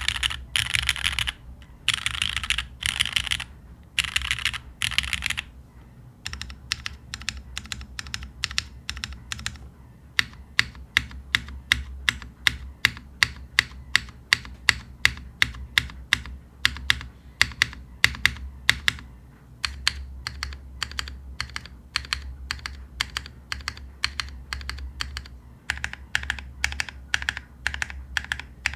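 Mechanical keyboard with lubed Hyperglide Black linear switches on an aluminum plate and GMK keycaps being typed on. It starts with short bursts of rapid keystrokes, then slows to separate keypresses a few per second, and quick bursts come back near the end.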